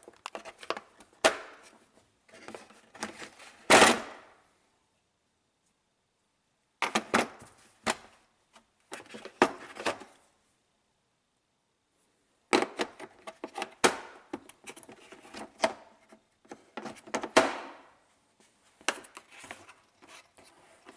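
Hand tools and bits clicking and clattering against each other and the tool case as they are handled and pulled out, in four bursts of clatter with quiet pauses between.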